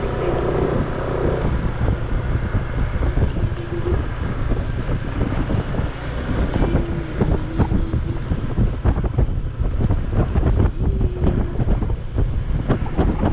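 Loud, gusty wind buffeting the microphone: a rough low rumble scattered with short knocks.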